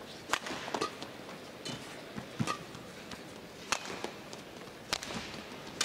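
Badminton rally: sharp racket strikes on the shuttlecock every second or so, with players' footfalls on the court, over a steady low hum of arena crowd noise.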